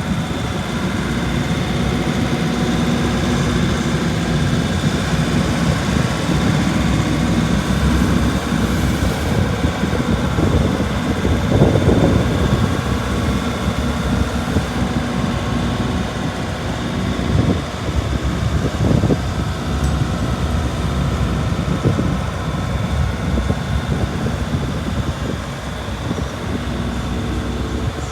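Kobelco SK75SR-3E 7.7-tonne excavator's diesel engine running steadily, with a few brief swells in level, the loudest near the middle.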